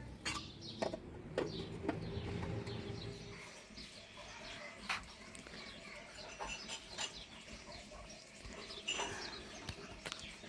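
Small birds chirping on and off, with a few scattered clicks and knocks and a low hum that fades after about three seconds.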